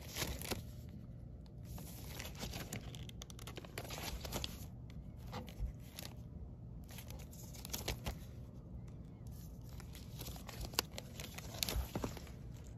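Vinyl LP records in clear plastic outer sleeves being flipped through in a record bin: crinkling plastic and sliding card jackets come in irregular bursts, with a few sharp taps and clicks.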